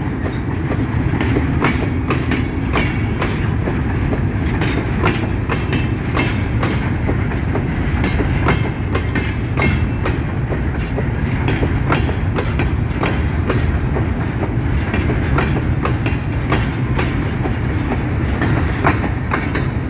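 Empty freight train of hopper wagons rolling past close by: a steady rumble of wheels on rail, with frequent sharp clacks as the wheels cross rail joints.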